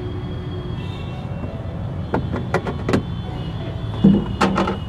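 Sharp plastic clicks and knocks from a car's boot side trim panels being pried and pulled loose, a quick run of them about two seconds in and a louder cluster near the end, over a steady low background rumble.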